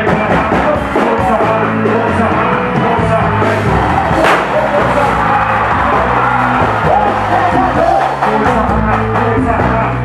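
Live pagode band music played loud through a PA, with a driving bass beat and singing. A brief hiss rises over the music about four seconds in.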